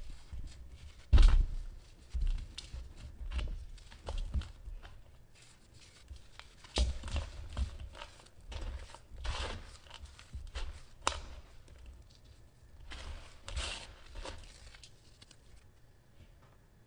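Dry sand-and-cement block crushed and crumbled by hand over a glass bowl: irregular gritty crunches and the crackle of falling grains, with one sharp crack about a second in. Toward the end it turns quieter as fingers rub and swirl the loose powder.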